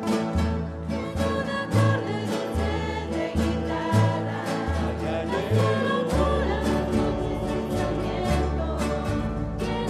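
A rondalla playing and singing: several acoustic guitars strumming in a steady rhythm over plucked double-bass notes, with a group of voices singing together.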